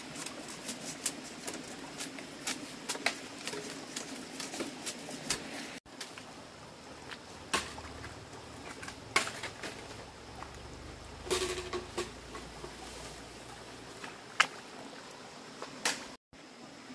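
Irregular sharp clicks and knocks of a machete working a piece of bamboo, over a faint steady background.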